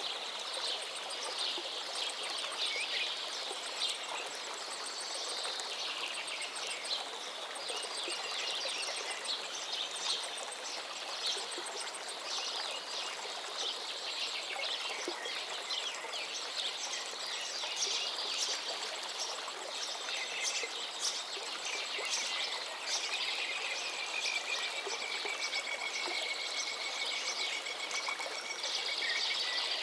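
A chorus of small birds chirping and singing without a break over a steady background hiss, with one long high note held for several seconds in the second half.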